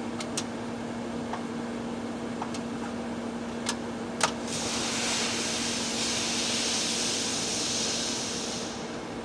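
TIG welding on thick-walled pipe: a steady electrical hum with a few sharp clicks, then about four seconds of arc hiss starting about halfway in and cutting off sharply near the end.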